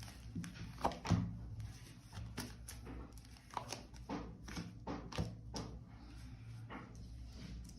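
Tarot cards being handled and laid out on a table: an irregular series of light clicks and slaps over a steady low hum.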